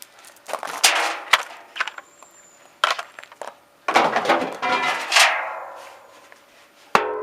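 Metal clanks and knocks, each ringing briefly, from parts of a washing machine's stainless steel wash basket assembly being knocked and handled; the loudest come about four and five seconds in. Near the end, one sharp hit sets the metal ringing with a steady tone.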